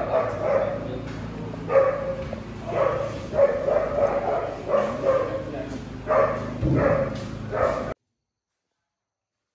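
A dog barking and yipping repeatedly in short calls. The sound cuts off abruptly near the end.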